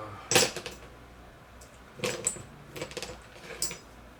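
Loose metal taps from a thread-tapping set clinking together as they are handled. A few sharp clinks with a brief metallic ring: the loudest comes about a third of a second in, and others follow around two, three and three and a half seconds in.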